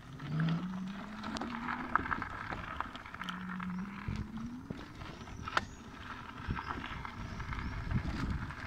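Electric scooter on the move: a low motor whine that rises in pitch twice as it picks up speed, over a rumble of tyres on the path and scattered rattling clicks.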